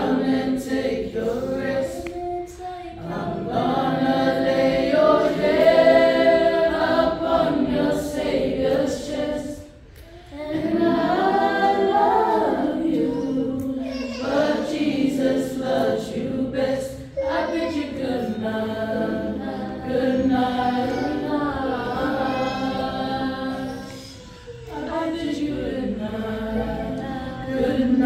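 A group of men, women and children singing together unaccompanied, with short breaks between phrases.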